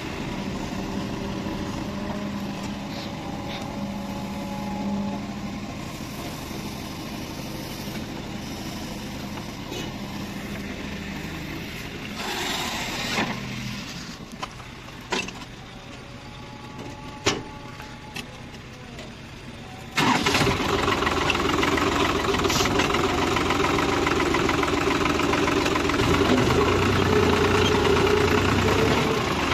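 Tractor diesel engine idling steadily as heard from the driver's seat, with a few sharp clicks during a quieter stretch. About two-thirds of the way in, the engine noise jumps suddenly to a much louder, steady run as the tractor drives off.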